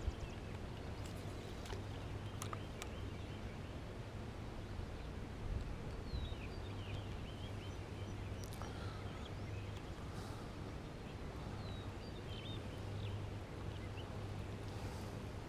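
Outdoor ambience with scattered short bird chirps over a steady low hum.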